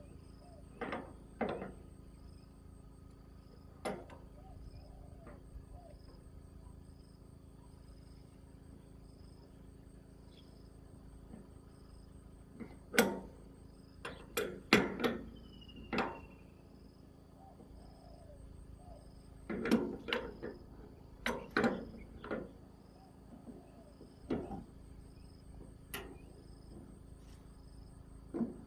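Scattered sharp knocks and clanks, some in quick clusters of two or three, over a steady background with a faint, evenly pulsing high chirp.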